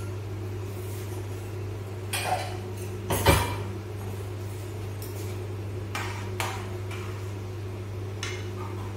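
Scattered clinks and knocks of steel kitchen utensils and pans, the loudest a sharp knock about three seconds in, over a steady low hum.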